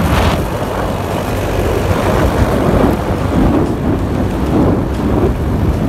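Wind buffeting the microphone of a scooter riding at speed, a loud steady rush with heavy low rumble, mixed with the scooter's engine and tyre noise on the road.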